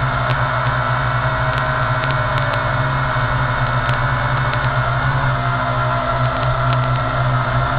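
WLToys V666 quadcopter's motors and propellers droning steadily in flight, picked up by its onboard camera's microphone; the pitch holds level.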